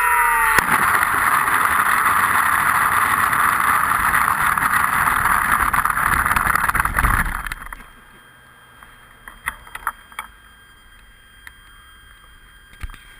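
RC plane's motor whine dropping in pitch as it winds down, then a loud steady rushing noise that swells lower just before it stops suddenly about seven and a half seconds in, leaving only faint scattered ticks.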